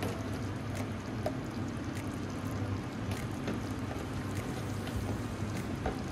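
Thick soup base simmering in a pot, bubbling steadily with small pops at irregular moments.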